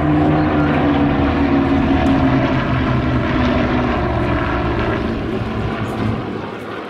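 Piston-engined propeller aircraft flying past, its engine drone sliding slowly down in pitch and easing off near the end.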